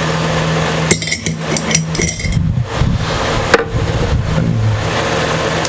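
Light metallic clicks and clinks from old tuning machines being handled and pushed out of an instrument's headstock: a few about a second in, a short cluster soon after, and one more past the middle. A steady low hum runs underneath.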